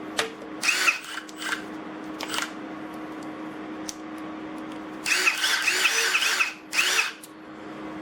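A brushless cordless impact driver spun up with no load in short trigger pulls: three brief whirs, then a longer one of about a second and a half past the middle and a short one after it, each rising and falling in pitch, over a steady low hum.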